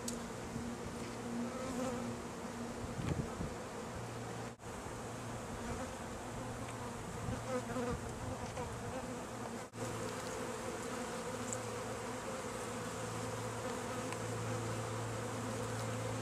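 Many honeybees buzzing in a steady, dense hum, cut off briefly twice.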